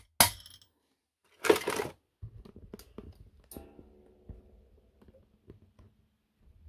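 A hammer strikes a steel punch once, with a sharp metallic crack, against the aluminium crankcase bearing seat just after the start; the punch staking raises the seat metal so the bearing fits tighter. About a second and a half in comes a short clatter, then light handling clicks.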